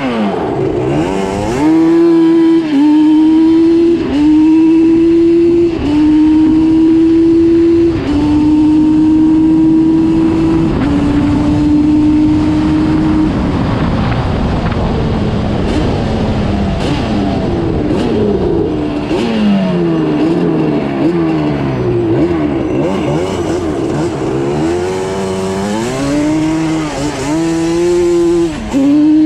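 Yamaha Banshee ATV's twin-cylinder two-stroke engine accelerating hard up through the gears. Its pitch climbs in each gear and drops at each of several quick upshifts. About halfway through it comes off the throttle and the pitch falls away with a few blips, then it accelerates and upshifts again near the end.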